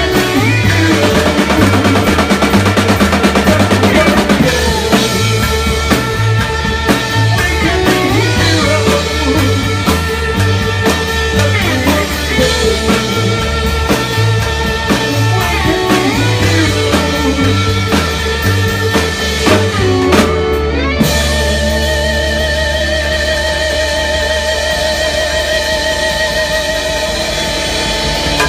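Live rock band playing an instrumental stretch with drum kit, bass and electric guitar; about two-thirds of the way in the drums stop and the band lets a chord ring out.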